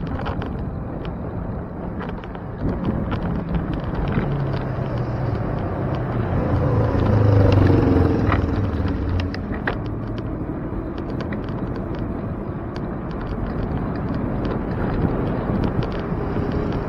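City street traffic and road noise heard from a moving bicycle: a steady rumble with frequent small clicks and rattles, and a motor vehicle's engine growing louder as it passes close, loudest about halfway through, then fading.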